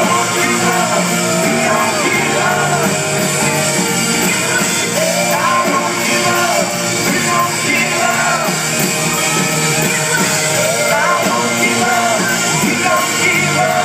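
A live rock band playing, with a lead vocal sung over drums and electric guitars, heard from the audience.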